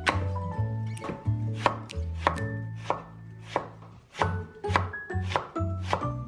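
Knife chopping on a cutting board in irregular strokes, about one or two a second, over soft background music.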